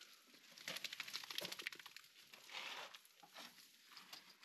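Faint scuffling, crackling and light splashing of a German pointer being bathed in shallow water, with a louder rush of noise about two and a half seconds in.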